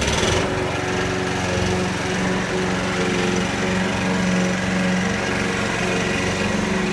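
Small gasoline walk-behind push lawn mower engine running steadily at working speed while the mower is pushed through long grass.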